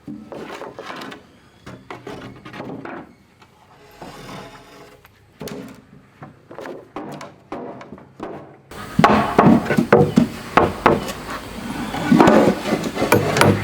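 Wood being knocked and tapped in irregular strikes, light at first, then louder and more rapid after an abrupt change about nine seconds in.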